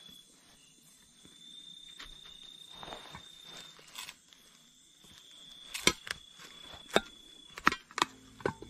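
A forest insect keeps up a thin, steady high-pitched trill with brief breaks. In the second half come a run of sharp clicks and knocks, the loudest sounds, from gear or sticks being handled.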